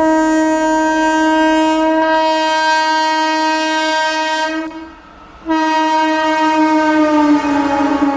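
Electric locomotive's horn sounding two long blasts as the train approaches at speed. The second blast drops in pitch near the end as the locomotive passes, with the rumble of the train rising underneath.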